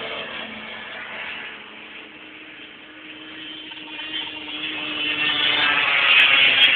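Racing snowmobile engines, fading as the sleds move off, then growing louder again as more approach, loudest just before the end. Two sharp clicks near the end.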